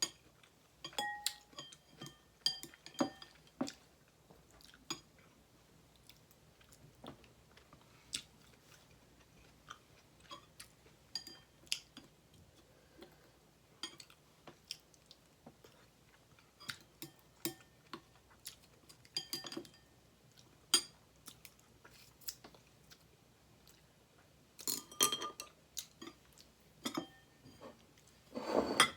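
Close-miked eating: wet chewing and mouth clicks in irregular short bursts, with a few brief ringing clinks. There is a louder burst near the end.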